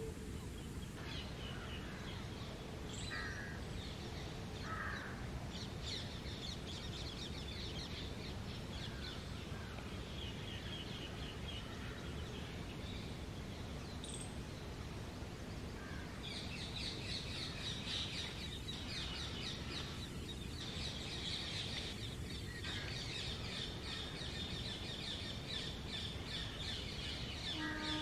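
Small birds chirping rapidly and high-pitched, the chirping growing much denser about halfway through, with a few lower, harsher calls in the first few seconds, over steady low background noise.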